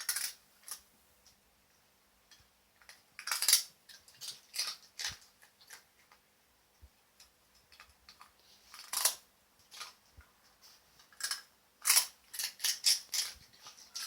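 A pet crunching and chewing dried fish treats: irregular sharp crackling crunches in bursts, with short pauses between them.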